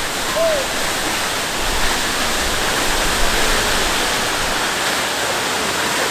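Lower Calf Creek Falls pouring steadily into its pool, a constant rushing of falling water.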